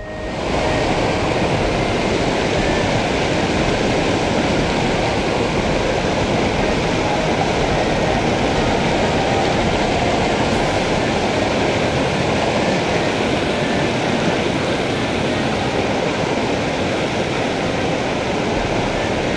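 Loud, steady rushing of river water flowing over rocks in a shallow riffle.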